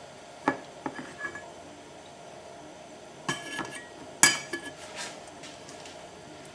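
Several light metallic clinks and taps from metal parts being handled and set against each other, the loudest about four seconds in.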